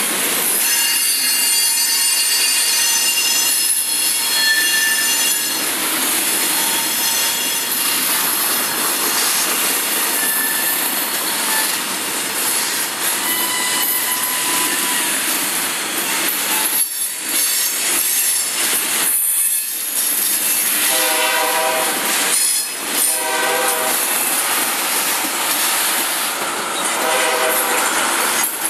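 Freight cars, boxcars then tank cars, rolling past close by: loud, steady wheel-on-rail noise with high-pitched wheel squeal. In the last third, a chord of several tones sounds in short bursts, twice.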